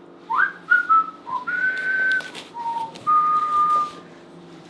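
A person whistling a short tune: a rising slide into a few quick notes, then two longer held notes, with a few light knocks.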